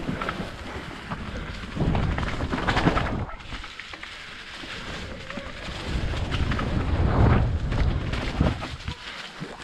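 Mountain bike rolling downhill over a dirt trail covered in dry leaves: tyres crackling through the leaves and rattling over the rough ground. Wind rumbles on the microphone, swelling louder twice as the bike picks up speed.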